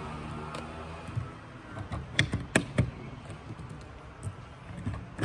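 Cartridges being pressed by hand into an AK-47 magazine, each one going in with a sharp metallic click. The clicks are irregular, several close together in the middle.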